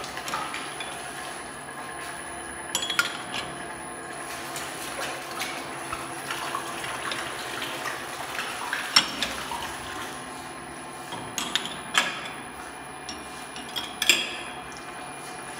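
XRB-16 semi-automatic bottle filler running on a test fill with water: liquid flowing into glass bottles over a steady machine hum, with a few sharp glassy or metal clinks.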